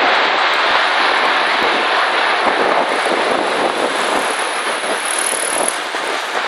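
Tornado wind rushing in a loud, steady, dense noise without pitch that eases slightly near the end.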